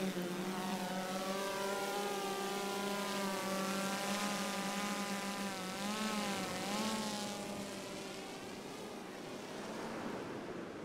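Large multirotor fishing drone lifting off and flying out with a hanging bait. Its motors give a steady pitched hum that wavers briefly about six seconds in and fades as the drone flies away.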